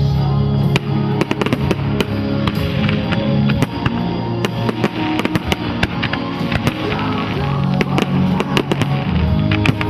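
Fireworks display set to loud music: a rapid, irregular string of sharp cracks and bangs from bursting shells over a steady music soundtrack.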